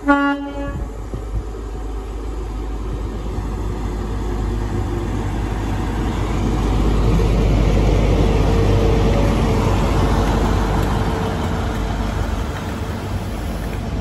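A GWR High Speed Train (Castle-class set) sounds one short horn blast, then runs through the station at speed; the rumble of the power car and wheels on the rails builds to its loudest about seven to ten seconds in and eases as the coaches pass.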